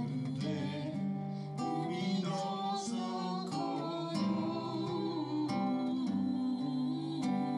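Acoustic guitar strummed in chords, with singing along.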